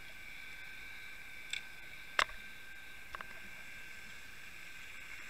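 Underwater recording: a steady faint hiss with several constant high whining tones, broken by a few sharp clicks, the loudest about two seconds in and a quick pair about a second later.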